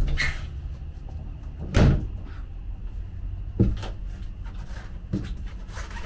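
Several separate knocks and thumps from a glass shower door and a fiberglass shower stall as a person steps in and sits on the built-in seat. The loudest thump comes about two seconds in, with softer knocks later.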